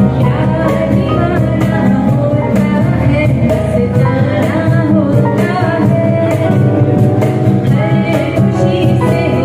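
A woman singing live into a handheld microphone, accompanied by an acoustic guitar, with a steady percussion beat.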